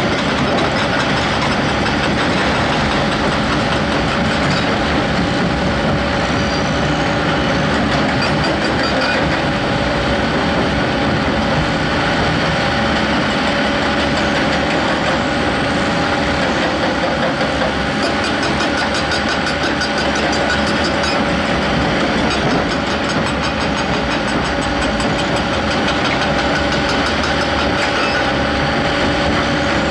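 Heavy diesel earthmoving machinery running steadily, a constant engine drone with a steady whine over it.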